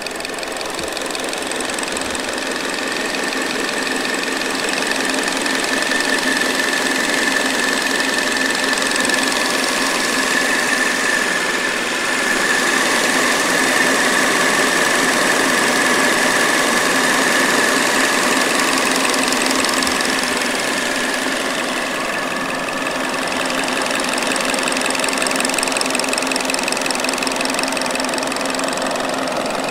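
2022 Hyundai Elantra's four-cylinder engine idling, heard up close, a steady hum with a fast, even light ticking on top. It grows louder over the first few seconds and then holds steady.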